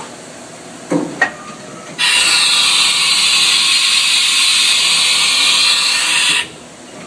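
Two sharp clunks, then a loud steady blast of compressed air for about four seconds that cuts off suddenly. This is typical of the pneumatic tool-release air blast in the Cat 40 spindle of a Haas VF0 CNC machining center during tool handling.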